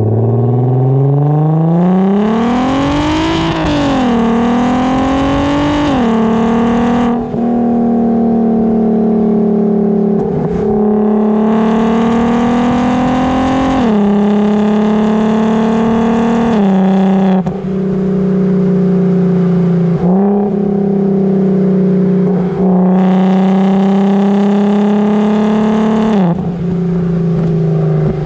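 Volkswagen Golf R32's 3.2-litre VR6 engine through an F-Town Aggressor aftermarket exhaust, heard close at the tailpipe. The revs climb hard twice in the first several seconds, each climb ending in a sharp drop at a DSG gear change. The engine then holds fairly steady revs with several quick dips.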